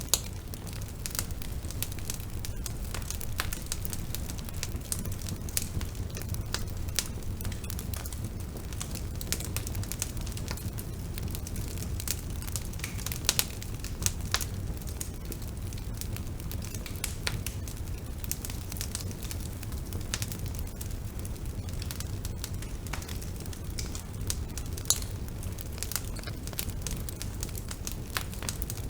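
Bonfire burning: a steady low rumble with constant irregular crackling and sharp pops of burning wood, a few pops louder than the rest.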